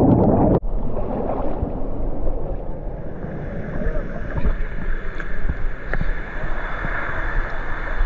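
Underwater churning and bubbling from a plunge into a freshwater pool, cutting off abruptly under a second in. A steady rush of water with a low rumble follows.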